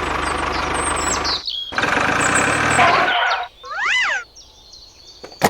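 A small engine running with a steady low pulse, cutting out briefly about a second and a half in and stopping about three and a half seconds in. It is followed by one short rising-and-falling chirp.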